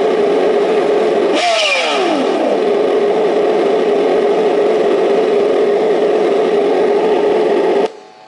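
Simulated car engine sound from an RC car's engine-sound unit, idling steadily. About a second and a half in, a burst of revs falls back to idle over about a second, and the sound cuts off suddenly near the end.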